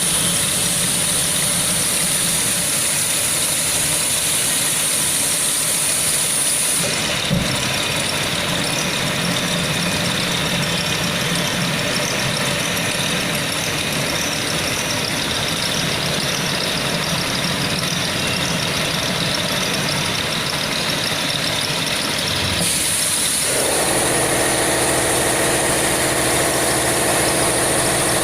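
A 1325 linear tool-change CNC router running with steady machine noise. Its high whine drops out about seven seconds in, together with a single knock, and comes back near the end, when a steadier hum also sets in.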